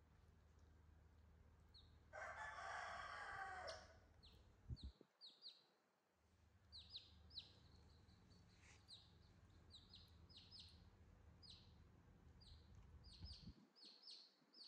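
Newborn chick peeping: short, high, downward-sliding cheeps repeated irregularly. A louder burst of rustling noise comes about two seconds in and lasts nearly two seconds.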